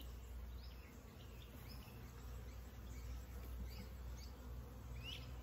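Honeybees from an opened package of bees humming as a low, steady drone, with short bird chirps scattered over it.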